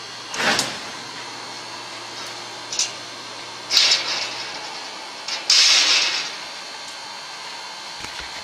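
Cut-out 3 mm stainless steel part being pressed and knocked out of the laser-cut sheet: four short bursts of metal scraping and rattling, the loudest about four and five and a half seconds in, over a faint low machine hum that stops about five seconds in.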